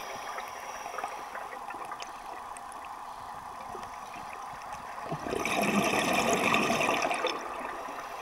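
Underwater sound of a scuba diver breathing out through a regulator: a rush of exhaled bubbles starts about five seconds in and lasts about two seconds, over a low steady underwater hiss.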